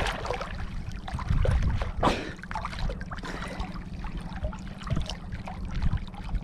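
Shallow seawater splashing and sloshing in irregular bursts, over a steady low rumble.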